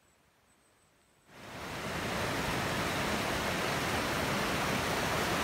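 Near silence, then about a second in the steady rush of a fast mountain creek tumbling over rocks comes up and holds.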